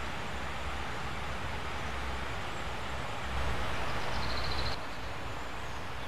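River water flowing, a steady rushing noise with a low rumble, a little louder from about three seconds in and changing abruptly just before the five-second mark. A short, rapid high trill of a bird is heard just before the change.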